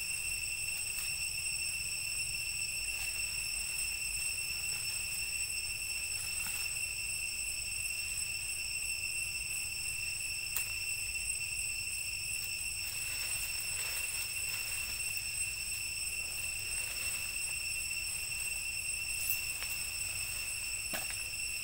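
Steady, high-pitched insect drone in the forest: one unbroken tone with overtones that never changes. A few faint short rustles and snaps come through now and then.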